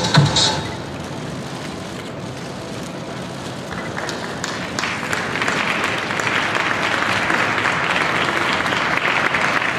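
Audience applauding, building up and getting louder from about four seconds in. Electronic music cuts off in the first half second.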